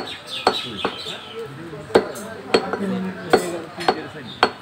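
Butcher's heavy cleaver chopping beef on a round wooden chopping block: a series of about nine sharp, crisp chops at uneven spacing.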